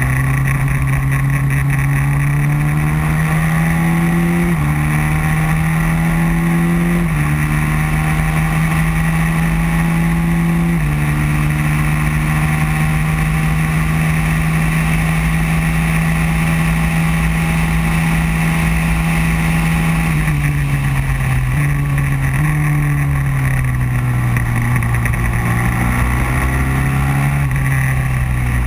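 Racing kart engine running at speed, heard from on board the kart, its pitch climbing in a few sudden steps over the first ten seconds or so, holding level, then dropping in steps after about twenty seconds, over a steady rush of wind and road noise.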